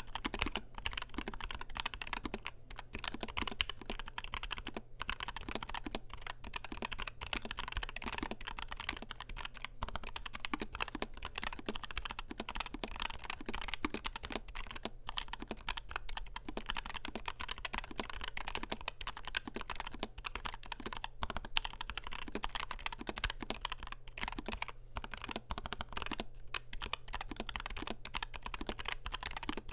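Continuous fast typing on a NuPhy Air60 V2 low-profile mechanical keyboard with Gateron Low-profile 2.0 Red linear switches, aluminium plate and PBT double-shot low-profile keycaps: a dense run of keystroke clicks with brief pauses.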